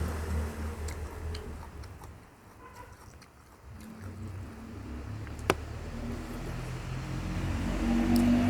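Chewing and crunching on raw vegetables, with a few sharp clicks, over a low engine-like hum that fades in the middle and grows louder near the end.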